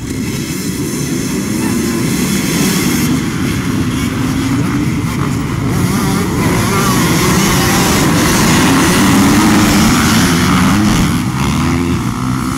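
A large pack of dirt bikes launching together from a race start, many engines revving hard and accelerating past at once. Loud, and dense with overlapping engine notes.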